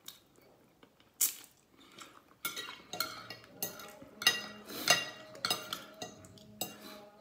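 Metal spoon and fork clinking and scraping on a plate. One sharp clink comes about a second in, then a rapid string of clinks and scrapes from about two and a half seconds on.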